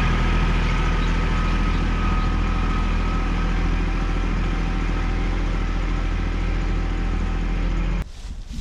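Kubota L3800 tractor's diesel engine running steadily at idle. It stops abruptly near the end.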